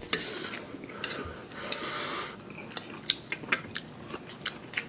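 Close-up eating sounds: two breathy, hissing draws of air, each about half a second long, one near the start and one about two seconds in. They are followed by a run of small sharp clicks from chewing and utensils.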